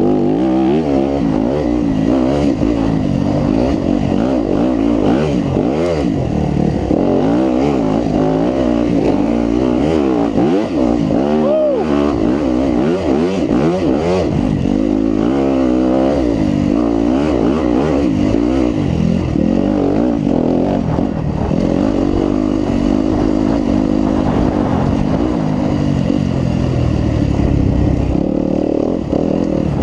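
2018 Yamaha WR250F's single-cylinder four-stroke engine being ridden round a dirt track, its revs rising and falling constantly with the throttle and gear changes.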